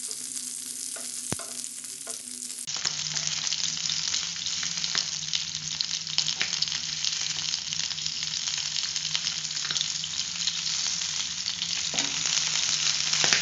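Mutton pieces and garlic cloves sizzling steadily in butter in a nonstick frying pan, with scattered crackles. Metal tongs click against the pan as the pieces are turned.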